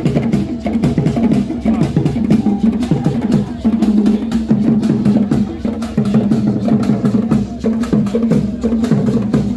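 Music with quick, steady percussion: drums and sharp wood-block-like strikes over a sustained low tone.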